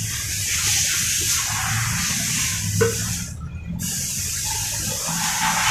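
Carburetor cleaner spraying under pressure through a fuel injector held open by battery current, a steady hiss. It cuts off abruptly a little over three seconds in, then resumes about half a second later.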